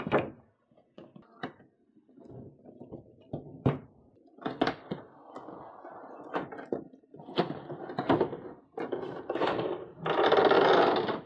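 Cardboard figure box and clear plastic packaging being handled: a run of taps and knocks against the box, with rustling, and a louder rustle lasting about a second near the end.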